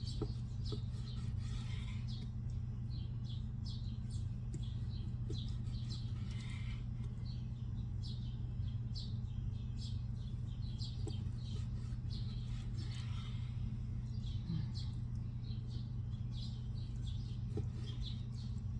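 A small bird chirping over and over in short, high notes, over a steady low hum.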